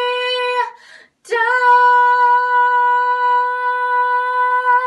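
A girl's unaccompanied voice singing: one held note breaks off just under a second in, and after a quick breath she sings one long, steady high note on "down".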